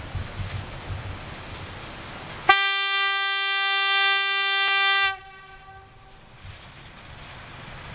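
Diesel locomotive's horn sounding one steady blast of about two and a half seconds, a single pitch rich in overtones, starting about two and a half seconds in, as a warning for the level crossing ahead. Before it, the low rumble of the locomotive running; after it, a fainter rumble.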